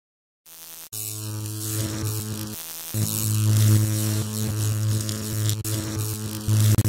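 Electrical hum and buzz with crackling static, the flickering-neon sound effect of a logo reveal. A click about a second in sets off a steady low hum that cuts out briefly near three seconds and stutters near the end.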